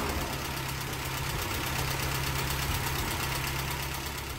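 An engine idling steadily, with an even low hum, fading out near the end.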